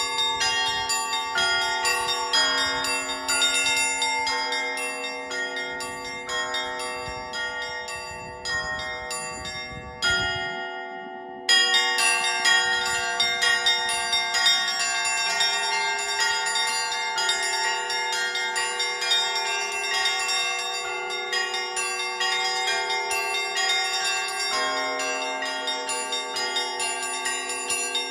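Russian Orthodox church bells rung by hand (zvon): quick repeated strikes on the small high bells over steadier strokes of deeper bells, all ringing into one another. About ten seconds in, the deep ringing drops away for a moment, then the full peal returns louder.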